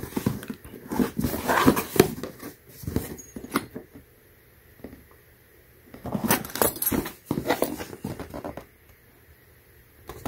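Hands gripping and turning a cardboard box, with irregular scratching, rubbing and knocking of fingers and palms on the cardboard in two spells: one in the first few seconds and another from about six seconds to eight and a half.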